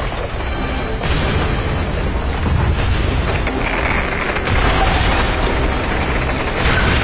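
Animated explosion sound effect from the Tamatebako box blast: a deep, continuous rumble with fresh blasts about a second in, again around four and a half seconds, and near the end. Background music plays under it.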